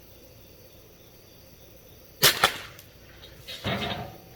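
Crossbow loosing a very short bolt: a sharp double snap of the string and limbs releasing about two seconds in, then a second, longer noisy sound about a second and a half later.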